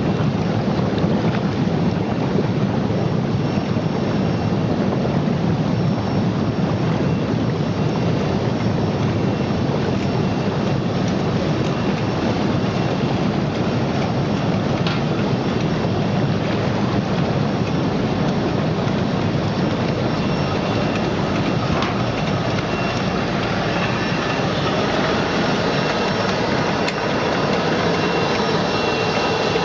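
Bubble-type fish washing machine running: a steady churning and splashing of water stirred by air bubbles, over a low, even hum.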